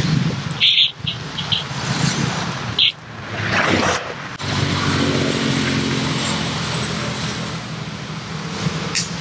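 A motor engine running steadily in the background, a low even hum. Two short high chirps come in the first three seconds.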